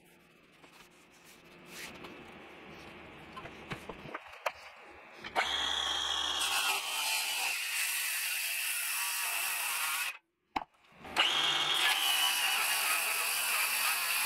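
Milwaukee M18 Fuel cordless circular saw cutting through a solid oak panel along a straightedge guide: the saw starts about five seconds in and runs steadily with a high blade whine. It breaks off briefly and then cuts again. Before the saw starts there are faint rubbing and clicking handling sounds.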